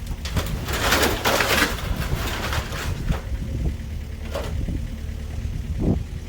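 An engine running steadily at low speed, with bursts of rustling, scraping noise over it, loudest during the first two and a half seconds, and shorter ones about four and six seconds in.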